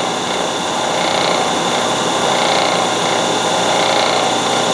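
Vertical milling machine running steadily, its spindle turning a cutter against a metal part clamped in the vise.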